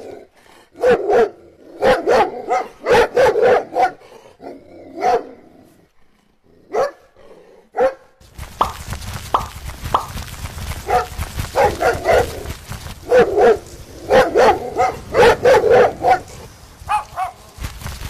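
Dog barking in quick runs of short barks. A steady background rumble and hiss comes in about eight seconds in and runs under the later barks.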